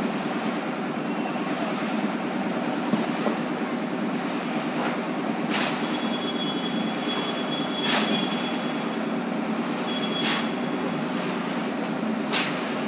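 A steady engine drone, with a sharp click about every two and a half seconds and a thin high tone twice in the second half.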